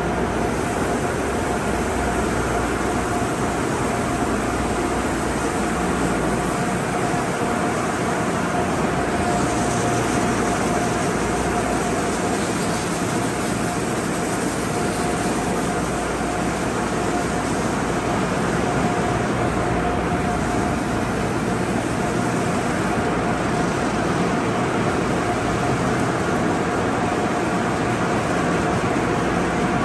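Conveyor car wash tunnel with Sonny's equipment running: water spraying from the arches and cloth wash brushes turning, over a steady machinery noise with a constant mid-pitched whine.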